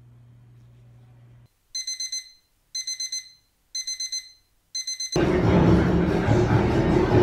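Digital alarm clock beeping in groups of four quick, high-pitched beeps, four groups about a second apart. About five seconds in, the beeps are cut off by the loud, steady din of a busy cafeteria.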